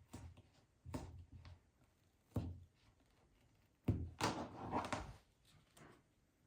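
Dull knocks on a work table, with rubbing and handling sounds, as glued fleece and craft tools are worked by hand: single knocks about one and two and a half seconds in, then a short cluster of knocks and rubbing about four seconds in.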